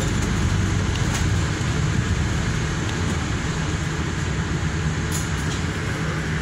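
Interior of a moving service bus: a steady engine drone with road and cabin noise.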